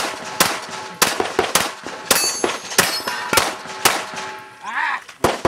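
Pistol fired in rapid succession during a practical shooting stage, about eight shots roughly half a second apart, with steel targets clanging and ringing as they are hit. After a pause of over a second, one more shot comes near the end.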